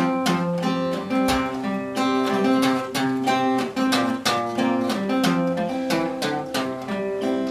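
Acoustic guitar played solo, picked and strummed in a steady rhythm: an instrumental passage of a folk song, without singing.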